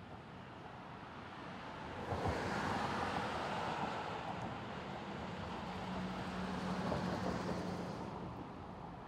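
Cars passing on a street, one after another: tyre and engine noise swells about two seconds in, eases off, then swells again with a low engine hum before fading.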